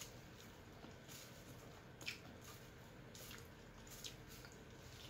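Faint mouth sounds of eating: a few soft, wet clicks and smacks while chewing, over quiet room tone.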